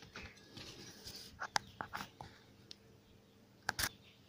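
Light handling clicks and taps from a short length of copper pipe being moved and set down on a desk over paper, a few quick taps about a third of the way in and a sharper knock near the end.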